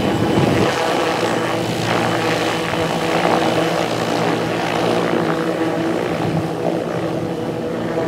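Air ambulance helicopter running loud and steady as it hovers low and descends to land on a beach, its rotor and turbine engines making a level, pitched hum over a rushing noise.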